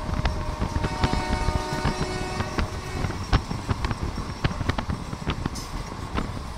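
Passenger trains running side by side: Indian Railways express sleeper coaches rolling past on the next track, a steady rumble full of irregular knocks and clatter from wheels over rail joints. A steady high whine sounds over the first three seconds or so.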